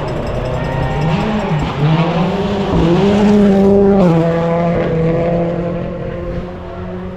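Rally car engine revving hard, its pitch dipping and climbing to a peak about three seconds in, then dropping suddenly about four seconds in and holding steady.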